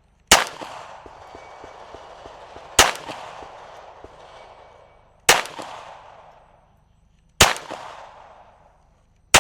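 Glock pistol fired in slow, deliberate single shots: five shots about two to two and a half seconds apart, each followed by a fading echo.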